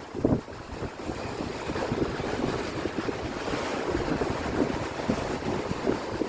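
Wind rumbling and buffeting on the microphone over the steady rush of ocean waves, aboard a sailing catamaran under way in a big sea. The strongest gust comes just after the start.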